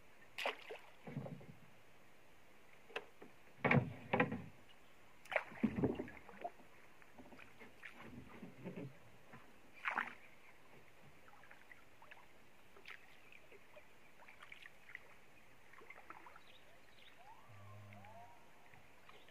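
Hand-paddling a narrow wooden boat: irregular paddle splashes in the water and knocks against the wooden hull, clustered in the first half with the loudest around four and six seconds in, then quieter gliding.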